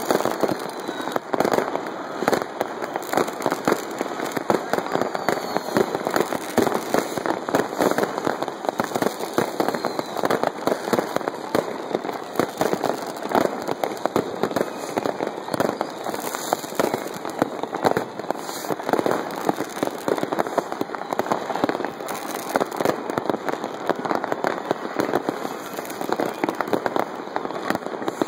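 Many fireworks and firecrackers going off at once in a dense, continuous crackle of overlapping bangs and pops, with no pause, as in a city-wide New Year's barrage.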